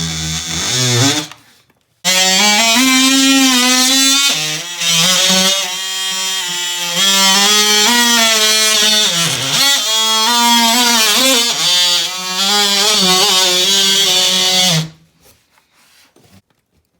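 Background music, a single wind-instrument-like melody with a wavering pitch, runs for about 13 seconds and cuts off suddenly near the end. At the very start, the buzz of an oscillating multi-tool cutting plasterboard is heard briefly before it stops.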